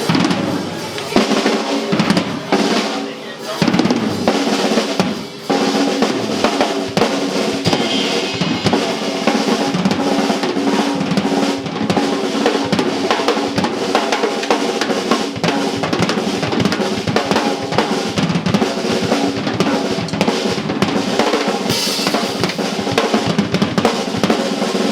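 Drum kit solo played fast and densely, with a steady stream of snare, rimshot and bass drum hits and ringing drums underneath.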